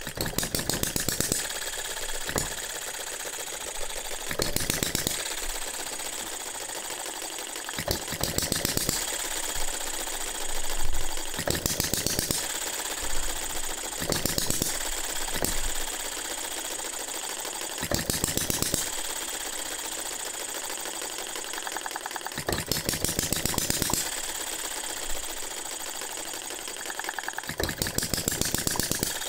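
Philip Duclos 'Odds n Ends' hit-and-miss model engine running, firing in short bursts of rapid exhaust beats separated by quieter spells of coasting. It is running in its cast iron piston rings.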